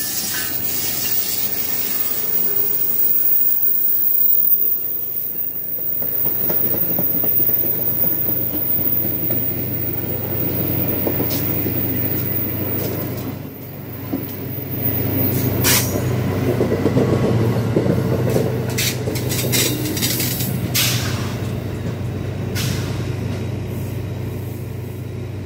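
Amtrak passenger train passing close by, led by a Siemens Charger diesel-electric locomotive: a steady engine drone, then the rumble of the coaches rolling past with sharp clicks of wheels over the rail joints, loudest in the second half.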